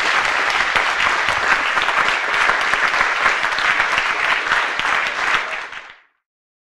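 Audience applauding steadily, fading out quickly near the end.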